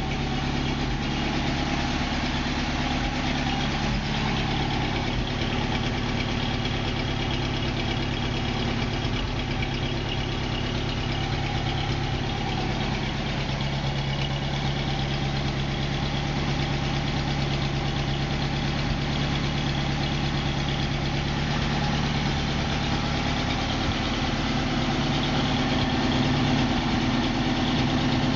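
UAZ-3153's UMZ-417 four-cylinder petrol engine idling steadily, still warming up after a cold start.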